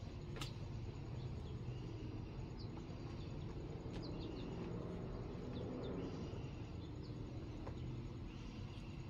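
Outdoor ambience: small birds chirping now and then over a low steady rumble, with one sharp click about half a second in.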